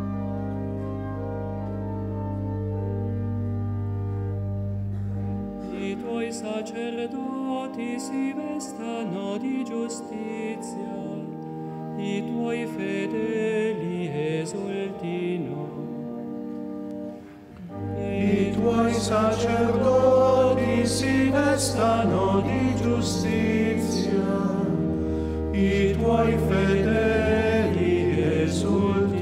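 Organ playing held chords with deep pedal notes. About six seconds in, a choir begins singing a hymn over the organ. The singing dips briefly near the middle, then comes back fuller with the organ's bass.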